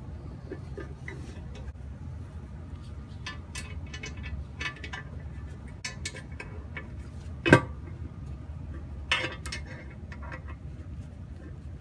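Light metallic clinks of a socket, bolt and hand tools against a steel transmission pan while a pan bolt is started, with a sharp metal clack about 7.5 s in and another smaller one about 9 s in. A low steady hum sits underneath.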